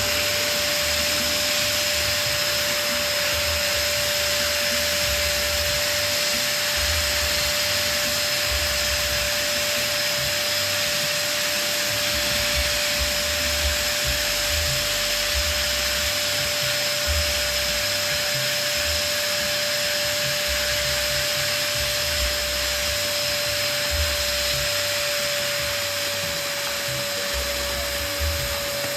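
Electric balloon pump running steadily, blowing a continuous rush of air with a steady high whine as it inflates a balloon.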